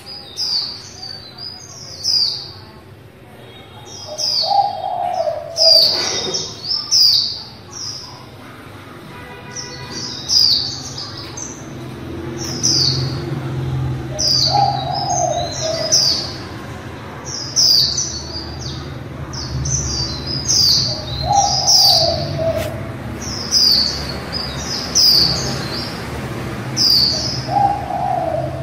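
Female white-eye giving rapid series of short, high chirping calls, repeated again and again, with a lower, shorter call recurring every several seconds in the background.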